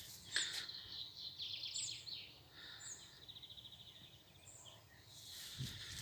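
Small songbirds calling in woodland: short high chirps and a couple of rapid trills. Footsteps on the path come in near the end.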